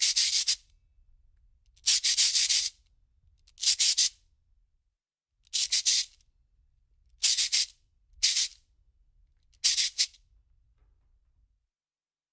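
A shaker rattled in seven short, hissy bursts at uneven gaps, each burst made of several quick shakes.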